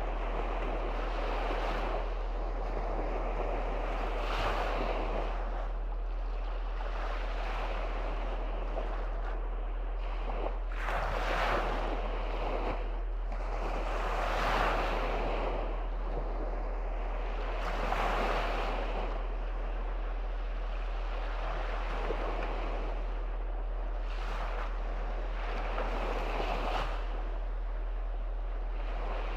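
Small waves on the Gulf of Riga breaking and washing up a sandy shore, a fresh surge of surf every three or four seconds over a continuous wash.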